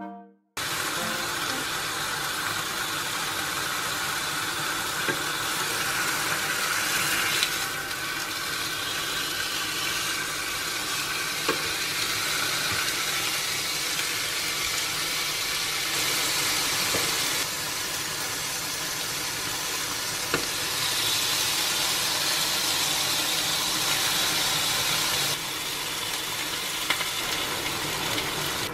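Pork neck steaks sizzling steadily in a hot frying pan, with a few light clicks of tongs against the meat and pan.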